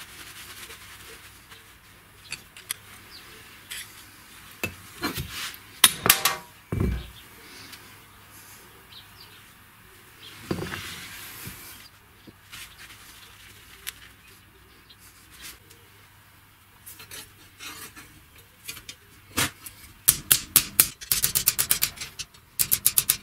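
Small metal parts of an old hinge clinking and knocking while being wiped in a cloth rag, with cloth rubbing between the clicks. A fast run of sharp metallic clicks comes near the end.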